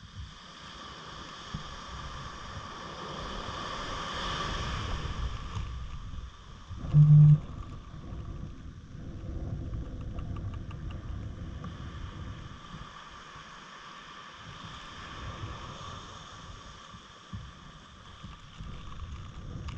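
Wind rumbling on the microphone over a steady high whine, with one short, loud, low-pitched beep about seven seconds in.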